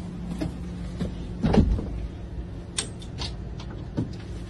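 Bus engine idling with a steady low hum inside the cabin, a thump about a second and a half in, then a few sharp clicks and knocks.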